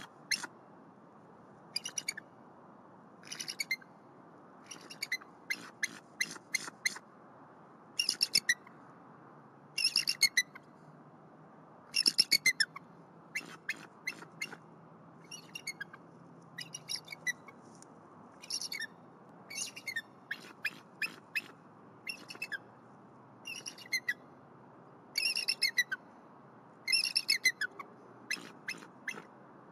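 A pair of bald eagles giving alert calls: repeated bursts of rapid, high-pitched piping notes, a burst every second or two.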